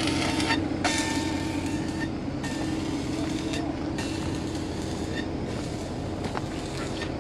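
Excavator's diesel engine running with a steady low drone. Over it sits a high hiss that drops out briefly every second or two.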